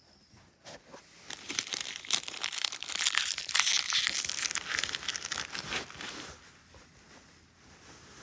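Cat clawing and scrabbling at a cardboard box: a run of dry, scratchy rustling and crinkling that starts about a second in and dies away about six seconds in.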